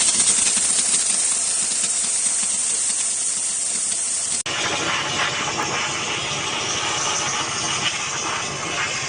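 High-temperature electric steam cleaner jetting steam in a steady, loud hiss. It breaks off for an instant about halfway through and resumes with a fuller, lower hiss.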